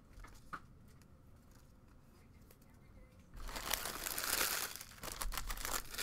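A few faint taps of cards being handled, then, about three seconds in, loud crinkling and rustling close to the microphone as empty trading-card pack wrappers are gathered up and crumpled.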